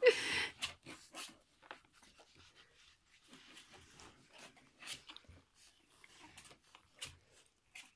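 Jack Russell terrier and Labrador retriever puppies shifting in their bedding as they are handled: soft rustles, small clicks and faint snuffling, with a brief louder sound right at the start.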